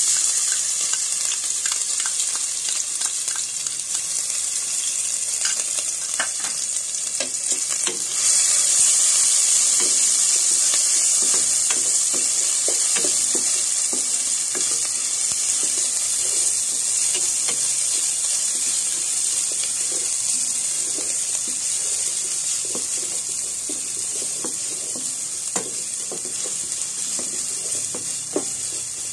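Ground ginger-garlic paste sizzling in hot oil in a pan, stirred with a wooden spatula that scrapes the pan now and then. The sizzle gets louder about eight seconds in.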